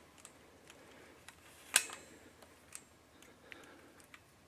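Scattered small sharp clicks and ticks at irregular intervals, with one louder, sharper click about two seconds in.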